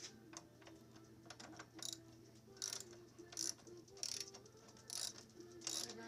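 Ratchet wrench clicking in repeated strokes as a hex socket works the front axle of a Honda CTX700, lighter ticks at first, then a burst of clicks about every three-quarters of a second from about two seconds in.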